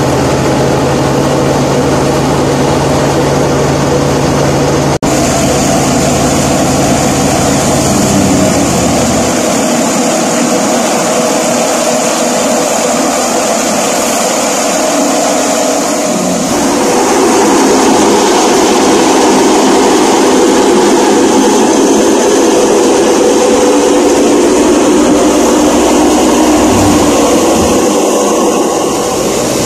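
Tractor-driven Hudabiah wheat thresher running at full speed with wheat stalks being fed into its drum by hand: a loud, steady mechanical din. The deep hum underneath fades about a third of the way in, and the noise grows louder around the middle.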